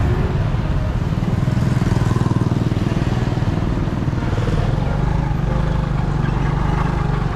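Small motorcycle engine running steadily at cruising speed, heard from the bike itself, with road and wind rush over it.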